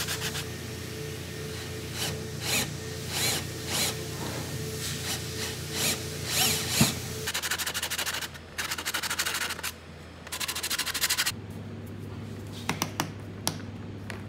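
Walnut being sanded by hand with a loose 240-grit sanding disc, smoothing the rough carved texture. The disc scrapes in separate strokes at first, then rubs fast back and forth. Near the end the rubbing stops, leaving a quieter stretch with a few light clicks.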